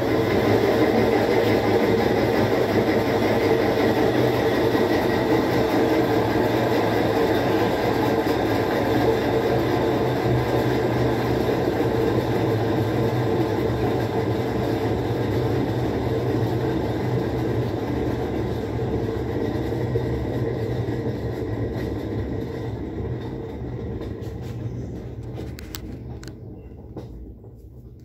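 Whirlpool 17 kg top-load washing machine in its spin stage, the tub spinning with a steady mechanical hum and rush. The sound gradually dies away over the last several seconds as the spin winds down.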